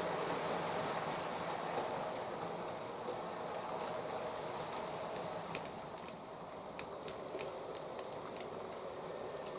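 OO gauge model locomotive, a Hornby Class 31 mechanism under a Lima Class 31 body, running with a train of nine bogie coaches: a steady whirr of motor and wheels on the track. Light clicks from the wheels on the track begin about halfway through.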